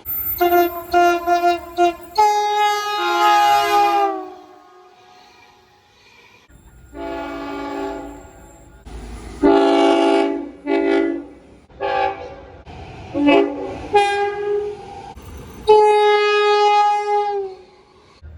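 Train horns sounding a series of blasts: a quick run of short toots, then longer blasts of several notes at once, some dropping in pitch as they end. The blasts switch abruptly between horns of different pitch.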